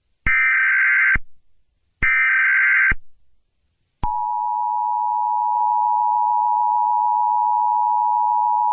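Emergency Alert System tones: two short bursts of SAME header data tones, under two seconds apart, then the steady two-tone attention signal starting about four seconds in, which announces an emergency action notification.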